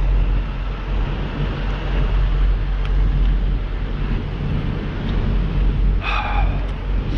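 Steady low vehicle engine rumble with outdoor noise, and a brief higher-pitched sound about six seconds in.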